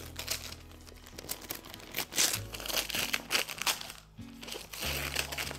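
Brown kraft paper wrapping being crinkled and torn off a parcel by hand, loudest about two to four seconds in, over background music with steady bass notes.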